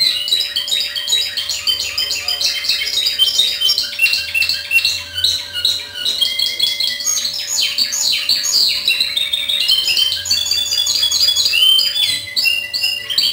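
A Spanish Timbrado canary singing without a break: fast runs of repeated notes and trills with sliding glides, the discontinuous-timbre (timbre discontinuo) song of the breed.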